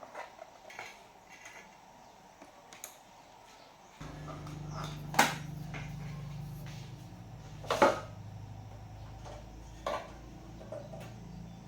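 Sharp metallic clanks, three of them standing out, over a steady low hum that switches on about four seconds in, with lighter clicks and taps before it.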